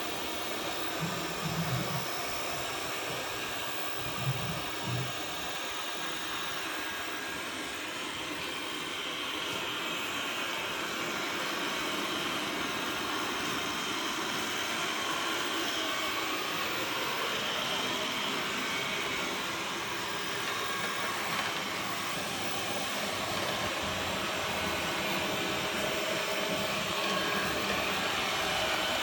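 Robot vacuum cleaner running: a steady whir of its suction fan and brushes, with a higher whine that grows a little stronger partway through.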